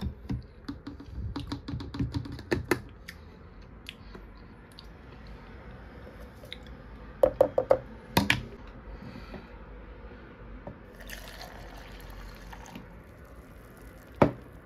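Plastic scoop clicking and scraping in a tub of whey protein powder, then a quick run of about four knocks and one stronger knock as the scoop taps against the plastic. A soft hiss of powder pouring into a plastic shaker cup follows, and there is one last knock near the end.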